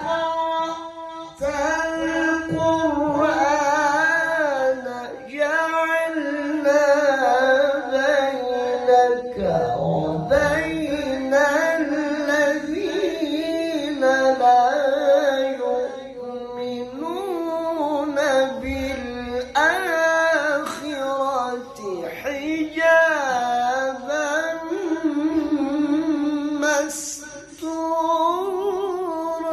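A male Quran reciter's solo voice in melodic tilawah style, holding long high notes with wavering ornaments and gliding melismatic runs. It pauses briefly for breath between phrases, as in practising drawn-out vocal phrases.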